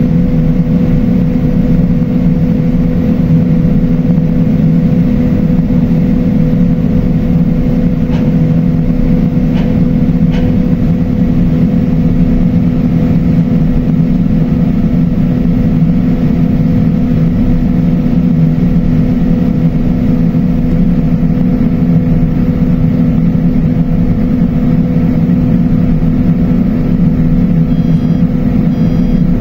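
A heavy engine running steadily: a loud, unchanging deep drone with a steady higher hum above it.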